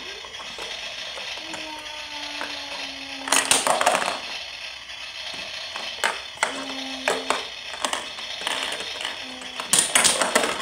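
Plastic play-kitchen pieces rattling and clattering as they are handled, loudest about three seconds in and again near the end, with single clicks between. Faint music plays under it.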